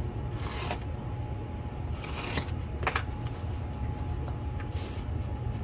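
Sheets of thick 3M polishing paper being cut with a razor blade and handled: a few short, dry scraping rustles over a steady low hum.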